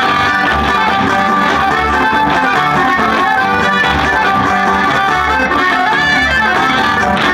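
Polka tamaulipeca playing loud and steady: accordion and plucked strings over a pulsing bass beat.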